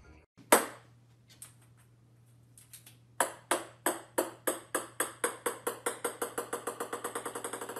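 Small ball bouncing on a hardwood floor: a sharp knock about half a second in, then from about three seconds a run of bounces that come ever faster and fainter as the ball settles.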